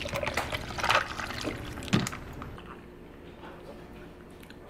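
Coffee poured from a ceramic mug over ice in a plastic tumbler, with ice clinking, and a sharp knock about two seconds in.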